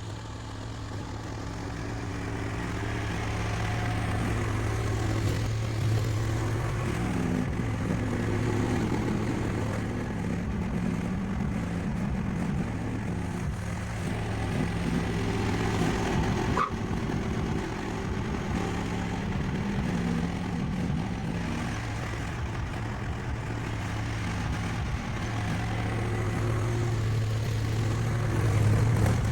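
Mini excavator engine running steadily while the machine pushes snow with its dozer blade. The engine note shifts up and down as the load changes, and the sound grows louder over the first few seconds. There is one sharp click about halfway through.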